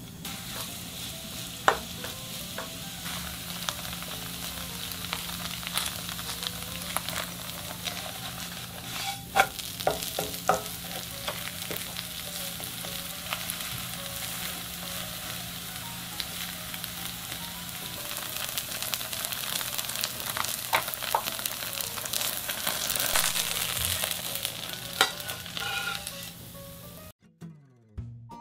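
Napa cabbage pancake batter sizzling as it fries in plenty of oil in a nonstick frying pan, with occasional clicks and scrapes of the spoon and spatula against the pan. The sizzling stops abruptly near the end.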